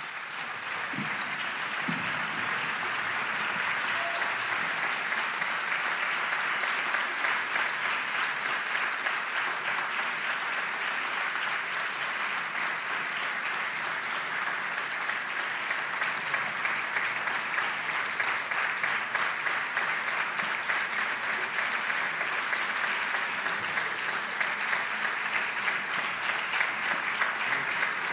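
Audience applauding: dense, steady clapping in a hall.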